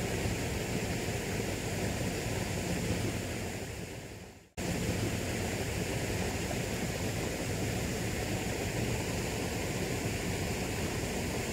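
Steady rushing of a flooded river's flowing water. It fades out about four and a half seconds in, then cuts back in suddenly and runs on steadily.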